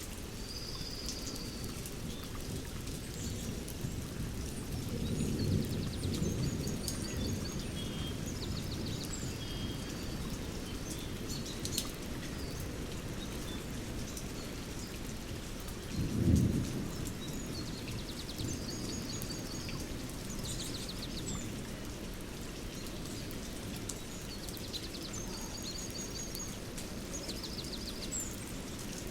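Thunderstorm with steady rain: a rumble of thunder swells about five seconds in, and a shorter, louder peal comes about sixteen seconds in. Birds call and trill on and off throughout.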